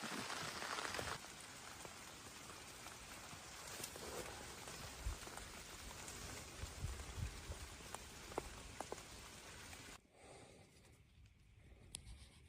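Rain falling: a steady hiss of drops with scattered louder drips and a few low thumps. The rain noise drops sharply about ten seconds in, leaving it much quieter with a few single drips.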